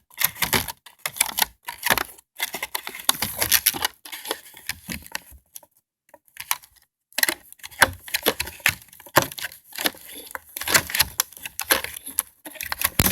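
A plastic toy and its packaging being handled to free it from the box: a busy run of sharp clicks, rattles and crinkles, with a short pause about halfway through.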